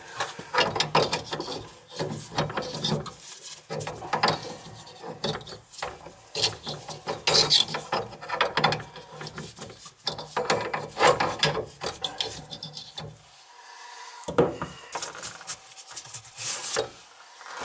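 Irregular scraping, rubbing and clicking of hands working metal fittings under a bathroom sink, undoing the old faucet's connections, with a quieter pause about three-quarters of the way through before a few more knocks.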